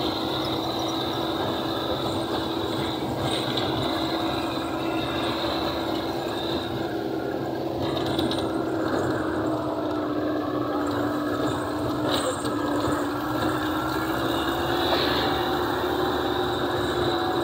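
A jeep's engine running steadily as it drives over a rough, rocky dirt track, heard from inside the cab, with the body and fittings rattling. The engine's pitch dips slightly partway through and then comes back up.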